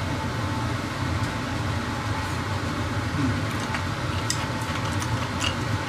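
Steady whir of a kitchen range hood extractor fan running. A few faint utensil clicks come in over the second half.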